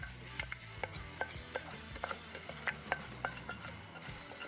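Light, sharp clicks from a frying pan of melted fat, fried onions and mushrooms with millet just added, about two or three a second, over a faint low hum.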